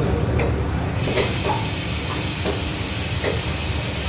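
Steady kitchen hiss over a low rumble, thickening about a second in, with a few faint ticks.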